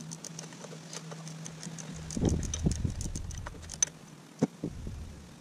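Hand tools working on a motorcycle's front brake caliper: a string of irregular light metal clicks and clinks, with a few dull knocks about two seconds in.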